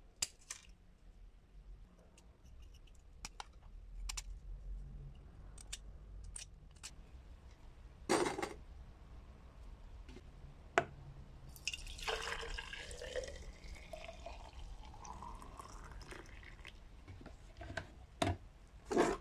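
Small knife blade chipping crusted rust off old pliers in scattered light clicks. After a loud knock, liquid is poured into an empty glass jar, its pitch rising as the jar fills, followed by a few knocks near the end.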